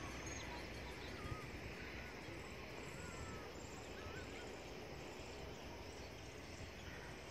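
Wind rumbling on the microphone, with a few short, wavering bird chirps scattered through it and a brief tap about a second in.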